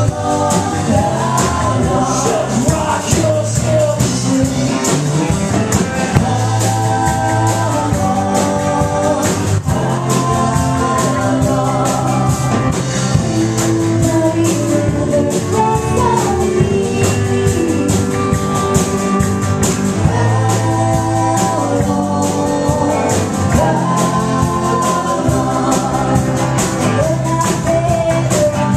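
Live band playing a song with singing, electric and acoustic guitars and a tambourine keeping a fast, even beat.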